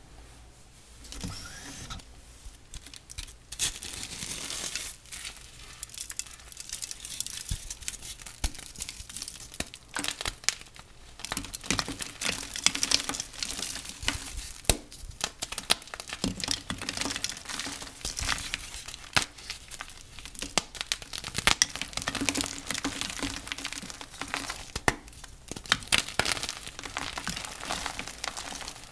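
Flaky dyed gym chalk being crushed and crumbled, a dense run of crisp crackles and crunches with sharper snaps scattered through, starting about a second in.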